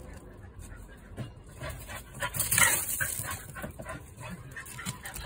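Shiba Inu whimpering, with one louder whine about halfway through.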